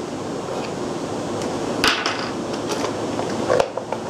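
A few light clicks and knocks of generator parts being handled, the sharpest about two seconds in and another near the end, over a steady background hiss.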